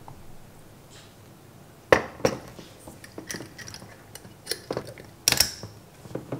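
A series of sharp clinks and knocks from a jar and bottle being handled. The first and loudest knock comes about two seconds in, another strong one a little after five seconds, with lighter clicks between.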